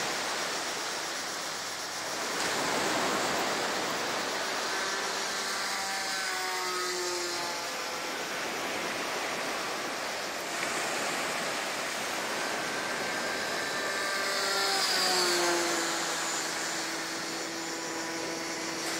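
OS .61 nitro engine of a Tiger 40 radio-controlled model plane flying overhead, a thin buzzing whine whose pitch drops twice as the plane passes, about a third of the way in and again past the middle. A steady rush of surf and wind runs underneath.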